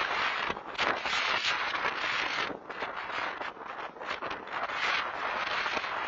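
Blizzard wind gusting over an outdoor security camera's microphone: a rushing hiss that swells and dips with each gust.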